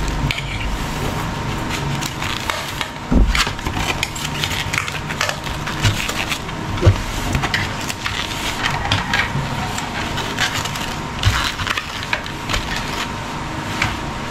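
Irregular crunching and crackling of a meal being eaten, pansit palabok topped with crushed pork chicharon, with spoons and forks scraping on plates. A few louder knocks of cutlery or plates come about 3, 7 and 11 seconds in.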